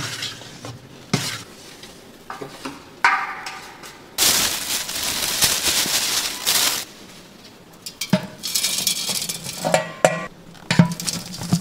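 A stainless steel scoop scraping and rustling as it digs into seasoning powder in a plastic-lined bag. Then comes a series of metallic clanks with short ringing tones as the scoop knocks against a stainless steel bowl.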